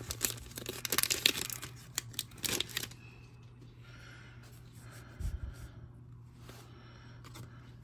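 Foil wrapper of an Upper Deck hockey card pack crinkling and tearing open for about three seconds, then quieter rustling as the stack of cards is slid out and fanned through, with a soft bump about five seconds in.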